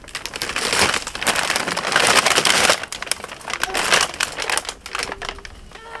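Snow crunching and crumbling close by as it is handled and trampled, an irregular crackly crunching that is loudest in the first half.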